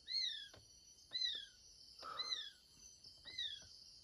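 An unidentified animal calling at night: four short, high notes that rise then fall, about a second apart, over a steady hum of night insects. It is the cry that the listeners take for an animal being bitten.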